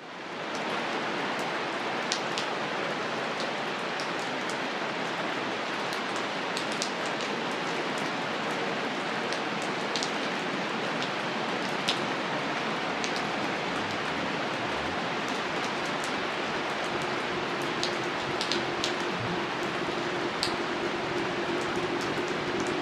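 Steady rain falling, an even hiss dotted with occasional louder single drops; it fades in over the first second.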